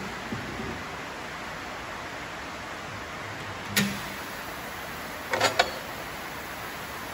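Steady hiss of rain, with a sharp knock about four seconds in and two or three quick metallic clanks a second and a half later, from a tyre and a steel tyre lever being handled on a tyre-changer machine.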